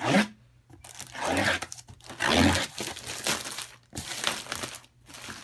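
A plastic mailer bag being torn open and peeled off a cardboard box, in several bursts of ripping and crinkling plastic, the sharpest right at the start.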